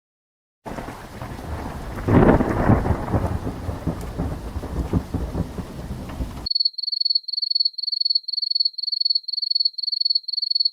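Thunderstorm sound effect: a steady hiss of rain with a loud rumble of thunder about two seconds in, cutting off abruptly after about six seconds. A high electronic beep then repeats about three times a second.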